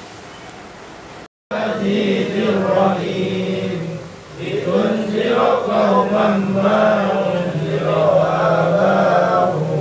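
A group of men chanting an Islamic recitation together in slow, drawn-out melodic phrases. It starts abruptly about a second and a half in, with a brief pause between phrases about four seconds in.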